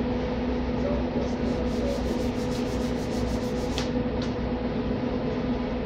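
Steady mechanical hum of workshop machinery with two constant low tones. About a second in, a run of light, fast ticks starts, about six a second, and ends with two sharper clicks near the middle, as hands work a fitting on the cable.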